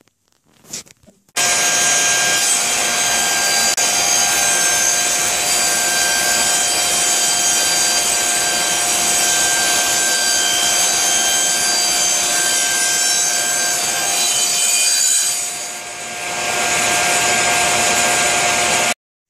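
Table saw running a 1/8-inch dado-set blade, cutting spline slots through the mitered corners of a wooden tray held in a spline jig: a steady, loud whine. It starts abruptly about a second in, dips briefly two-thirds of the way through, and cuts off abruptly just before the end.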